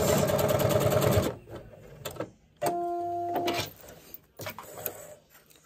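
Sewing machine stitching at speed, a rapid even stitch rhythm, which stops just over a second in. After a pause comes a steady tone lasting about a second, then a few light clicks.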